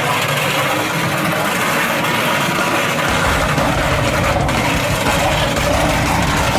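Car engine running steadily, with a low rumble coming in about three seconds in.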